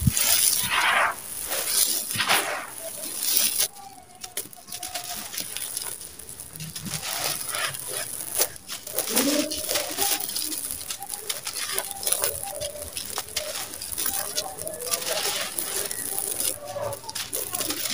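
Dry sand-and-cement mix crumbled by hand and sifting down onto a pile of the same grit: a dense gritty patter and hiss, heaviest in the first few seconds, then steadier.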